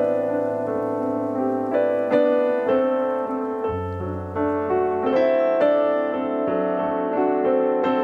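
Background piano music: a slow, gentle melody of sustained notes over changing bass chords.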